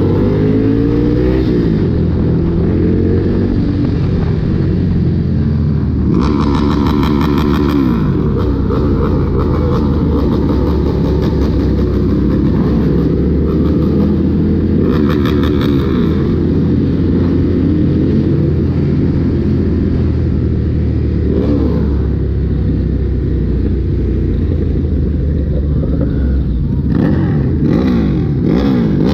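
Dense traffic of many motorbikes, their engines running and revving up and down. Over it, loud horn blasts twice: about six seconds in, and again about halfway through.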